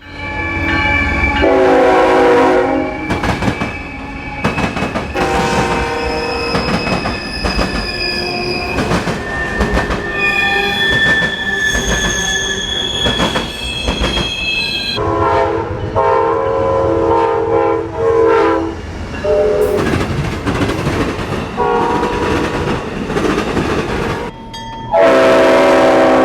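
Train horn sounding in several long blasts, with metal wheels squealing on the rails and the clatter and rumble of passing railcars in between.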